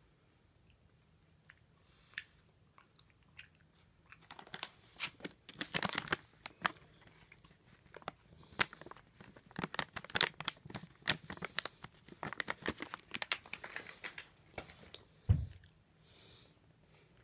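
Plastic cat-treat pouch (Hartz hairball treats) crinkling and crackling as it is handled, a dense run of crackles lasting about ten seconds. A single low thump follows near the end.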